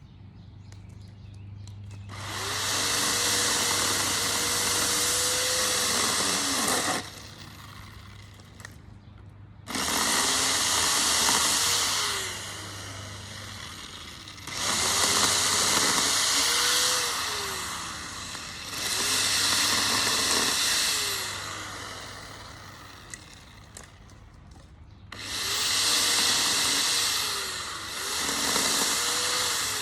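Small gas-engined yard power tool revved hard in five bursts of a few seconds each, dropping back to a low idle between them; the engine pitch sags and recovers during each burst as if under load.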